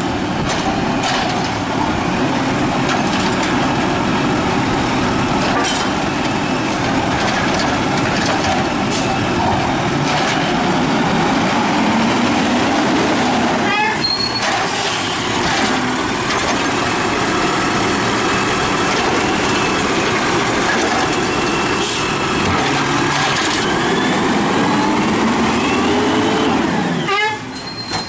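Diesel automated side-loader garbage truck running, its engine rising and falling in pitch as it pulls up and works the hydraulic arm to grab, lift and dump a trash cart. Short hisses of the air brakes are heard about halfway through and again near the end.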